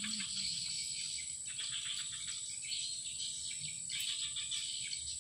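Insects chirring steadily in the vegetation, a constant high whine over a fine pulsing buzz.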